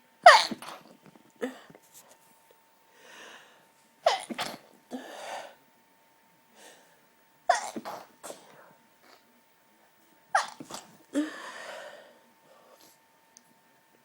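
A person stifling four hard sneezes in a row, about three seconds apart, each a sharp squeaky burst held back behind closed lips, with breaths drawn in between them.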